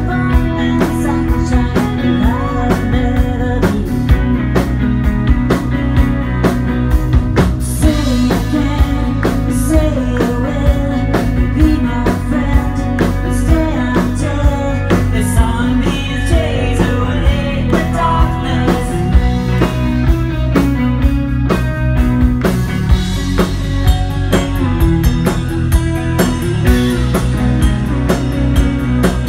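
Live rock band playing: electric guitar over bass and drum kit with a steady beat.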